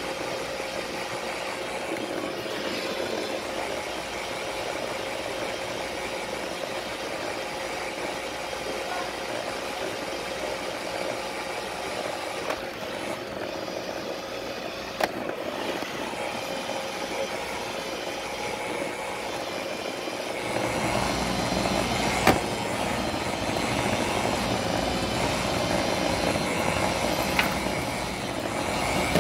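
Roomba robot vacuum running, a steady motor whir with a constant whine, broken by a few sharp knocks. A deeper rumble joins about two-thirds of the way through.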